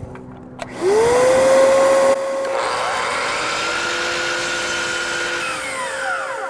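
DeWalt sliding miter saw starting up about a second in, its motor rising quickly to a steady high whine. The spinning blade then cuts into a board with the depth stop set to cut only halfway through, a kerf cut.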